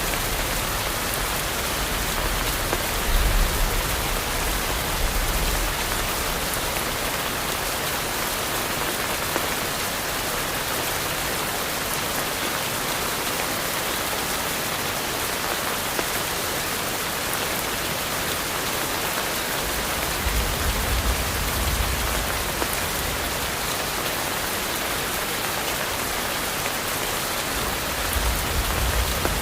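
Steady rain falling on forest foliage, an even dense hiss. Soft low rumbles swell under it a few times: near the start, about two-thirds through and near the end.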